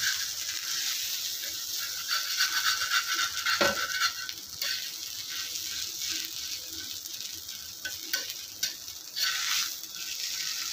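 Shami kebab patty frying in a little oil on a flat pan, the oil sizzling and crackling steadily. A metal fork scrapes and taps against the pan now and then, with a sharper clink about a third of the way in and a few more near the end.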